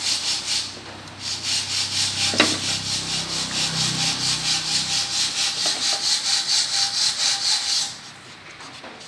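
A fast, even, rasping scrape at about six strokes a second. It pauses briefly near the start, then stops abruptly about eight seconds in, with one sharp click along the way.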